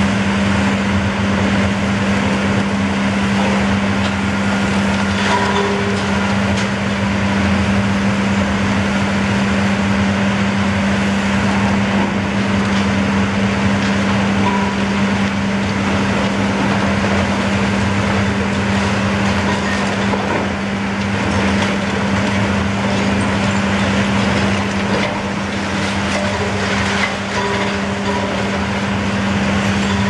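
Long-reach demolition excavator's diesel engine running steadily with a constant low hum, with a faint knock now and then.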